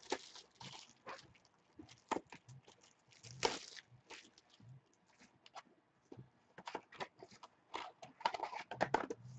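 Trading cards and a card pack's wrapper being handled: irregular crinkling, rustling and soft clicks, loudest about three and a half seconds in and again near the end as the pack is opened.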